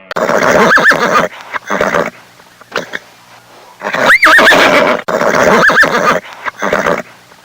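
Horse neighing: a long, wavering whinny followed by a shorter call, then the same pair again about four seconds later.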